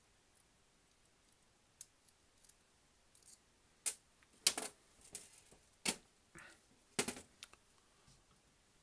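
Small metal model-locomotive parts and a pair of side cutters being handled and set down on a metal-topped workbench. There are a few faint clicks, then from about four seconds in a string of sharp, irregular clicks and clatters, the loudest about a second apart.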